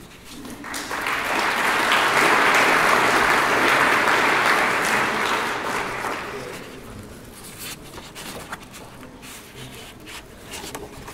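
Audience applauding: the clapping swells within the first second or so, holds for a few seconds, then dies away about six to seven seconds in.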